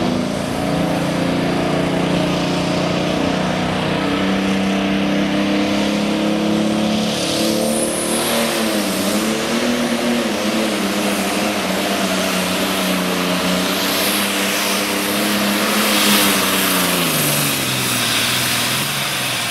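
Modified pulling tractor's engine running at high revs under full load as it drags a weight-transfer sled. Its pitch dips and wavers about halfway through, then falls away steadily near the end as the engine slows.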